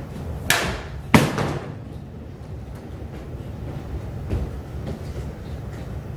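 A kicked-off bottle hitting a hard wooden floor and bouncing: two sharp clattering impacts in the first second and a half, the second one louder. A few faint knocks follow later.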